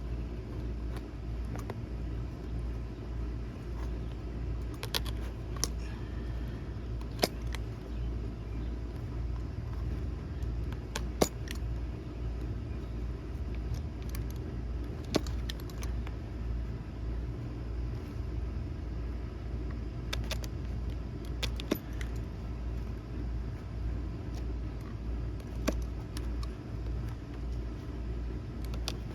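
Scattered sharp clicks and taps from a knife and the plastic console lid being handled while the upholstery edges are trimmed, over a steady low hum.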